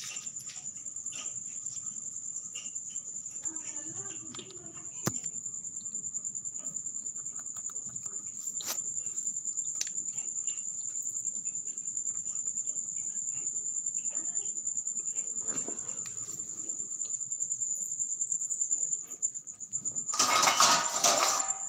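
Crickets chirping in a steady high trill. Near the end there is a loud rustling burst as the phone is handled and moved.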